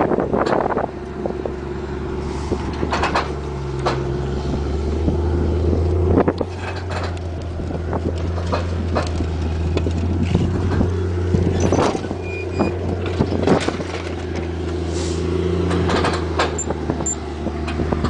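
Big diesel engine of a New Holland four-wheel-drive tractor running steadily at low revs, with scattered clicks and knocks over it.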